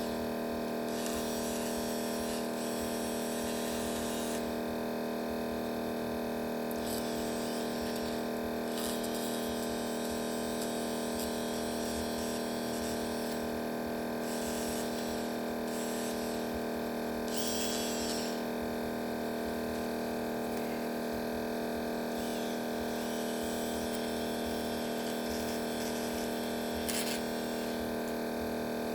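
A small motor or fan on a repair bench humming steadily, with soft hissing that comes and goes.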